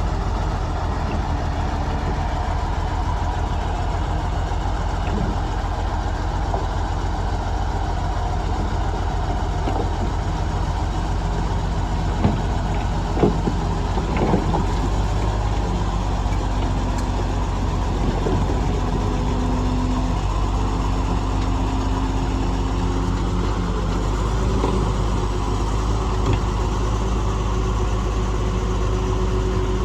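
Shantui bulldozer's diesel engine running steadily, with a few sharp metallic clanks about halfway through.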